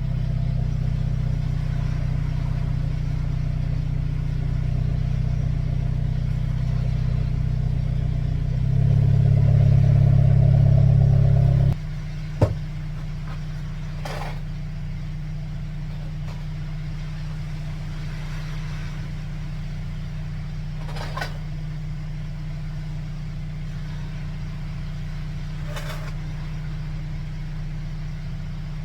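Hyundai Elantra N's turbocharged 2.0-litre four-cylinder engine running steadily, with a rise in revs from about nine seconds in. About twelve seconds in it drops suddenly to a lower, quieter steady hum, and a sharp click follows.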